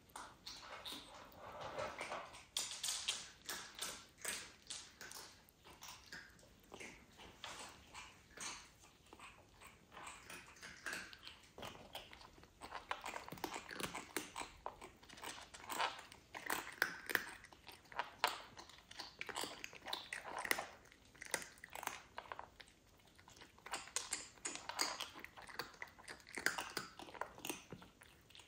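A kitten grooming itself, licking and nibbling at its fur with an irregular run of soft wet clicks and smacks that comes in clusters.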